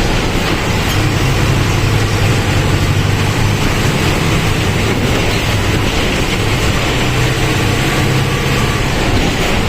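Mercedes-Benz OF-1722M bus's OM 924 LA diesel engine running steadily as the bus is driven, its low drone shifting slightly in pitch once or twice.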